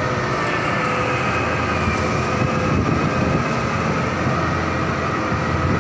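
Steady, loud drone of heavy tunnel-construction machinery, a low rumble with a constant whine over it.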